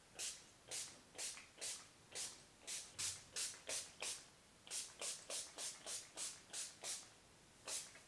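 Pump spray bottle of hair shine spray misting onto curly hair: about twenty quick hissing spurts at roughly two a second, with short breaks a little after the middle and near the end.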